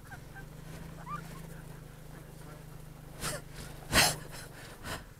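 Honda Helix scooter's single-cylinder engine running with a steady low hum at low road speed, with three short breaths or gasps close to the microphone in the second half, the loudest about four seconds in.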